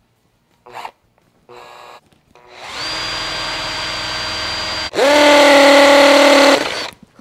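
Cordless drill boring into the bone of a raw tomahawk steak: two short blips of the motor, then a steady run of about two seconds, and after a brief stop a louder, harsher run of about a second and a half as the bit works into the bone. The bone is hard going for the drill, which the user says needs its hammer-drill setting.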